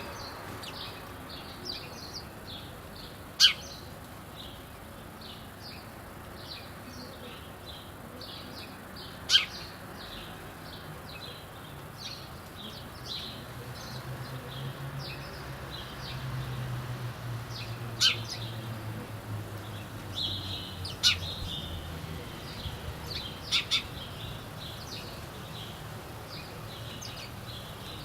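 Several small birds chirping and calling in a steady stream of short high chirps, broken by about five louder, sharp single calls. A low hum sits underneath through the middle stretch.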